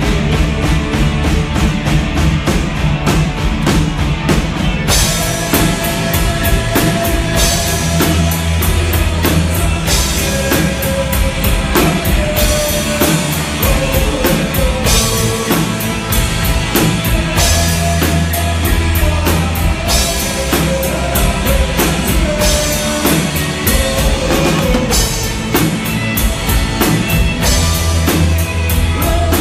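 Live rock band playing: electric guitars, bass and a full drum kit going steadily. The sound grows brighter and fuller about five seconds in.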